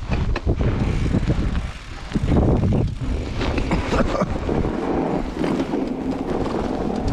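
Mountain bike being ridden through snow, with uneven wind noise buffeting the microphone throughout.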